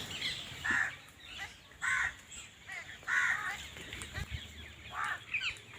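Birds gathered at scattered grain calling. There are four harsh calls, each about half a second long, spaced one to two seconds apart, with faint chirping between them.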